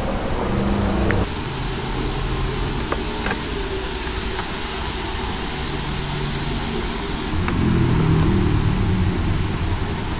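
Steady workshop and traffic background noise with a few faint clicks, and a low rumble that swells about seven seconds in.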